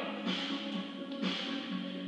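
Music playing: a song with a stepping melody line and no voice standing out.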